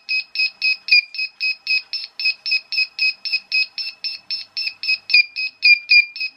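Buzzer on a C51 four-digit digital clock kit giving short, identical beeps in quick succession, about four a second, while the setting button is held down: each beep is the minutes setting stepping up by one.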